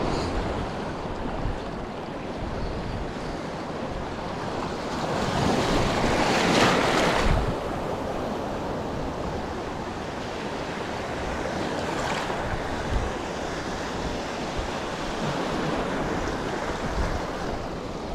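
Sea waves washing, with wind buffeting the microphone. One wave swells louder about six seconds in.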